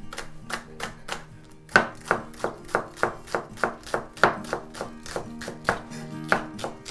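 Chef's knife chopping a spring onion on a wooden cutting board: a steady run of sharp knife strikes against the board, about three to four a second.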